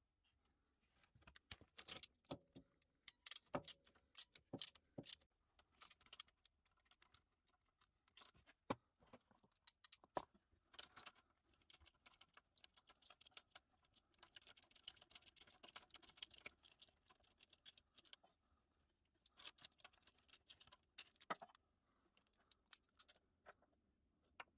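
Faint metal clinks and scrapes of a spark plug socket and T-bar worked against a scooter engine as the spark plug is unscrewed: scattered sharp clicks, with stretches of rattling and scraping around the middle and again near the end.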